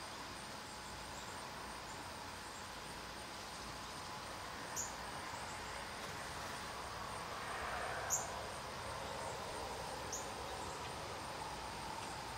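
Quiet outdoor ambience: a steady high hum with a low rushing sound that swells a little past the middle. Three brief high chirps come through, the second one the loudest.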